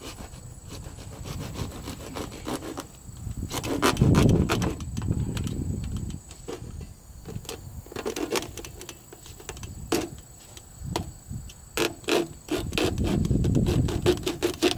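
Hand saw cutting through corrugated plastic drainage pipe in uneven back-and-forth strokes: a rough rasping full of sharp clicks, with the heaviest strokes about four seconds in and again near the end.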